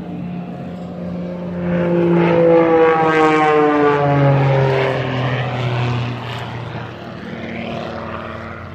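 Aerobatic propeller plane flying past, its engine note swelling over the first two seconds, then falling steadily in pitch as it goes by and fading after about six seconds.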